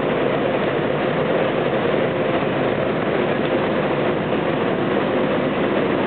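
Stationary hop-picking machine running, with hop bines passing through it on its conveyors and rollers: a loud, steady mechanical din with a faint constant hum.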